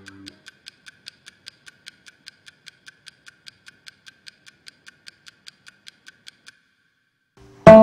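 Steady clock-like ticking, about four even ticks a second, stopping about six and a half seconds in. Guitar music starts loudly near the end.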